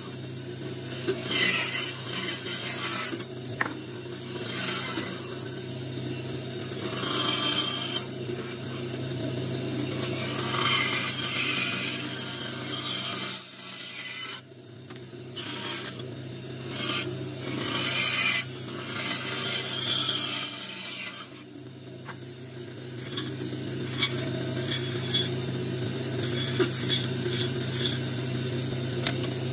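Bandsaw running with a steady hum while its blade cuts tight curves through a block of wood, the cutting coming in repeated spurts of noise as the block is pushed and turned. Near the end the saw runs on steadily without cutting.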